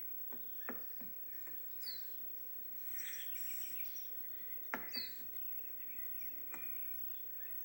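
Birds chirping now and then over a faint steady background, with scattered light clicks and taps; the sharpest click comes a little before the last chirp.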